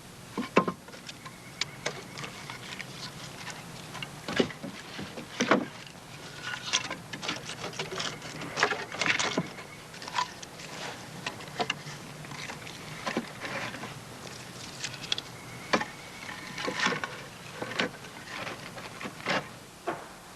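Split firewood knocking and clattering as pieces are dropped into the chimney of a charcoal pile, in irregular sharp wooden knocks, sometimes several in quick succession.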